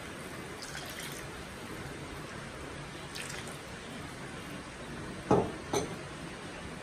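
Wooden spatula stirring a thin sweet and sour sauce in a wok, soft liquid sloshing, just after a flour-and-water thickener has gone in. Two sharp knocks come a half-second apart about five seconds in.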